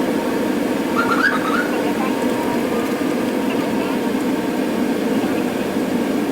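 Steady road and engine noise of a vehicle on the move, with a few short rising chirps about a second in.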